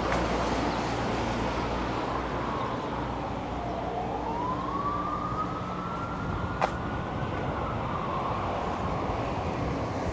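A siren wailing over a steady hum of road traffic, its pitch slowly sinking, then climbing and falling again; a single sharp click about two-thirds of the way through.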